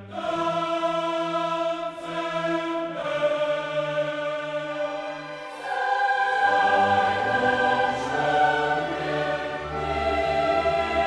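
Choral music: a choir singing long held notes, growing fuller and louder about six seconds in.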